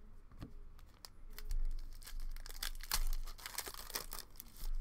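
Foil wrapper of a Panini Prizm Draft Picks basketball card pack being torn open and crinkled in the hands: a dense run of sharp crackles starting about a second and a half in.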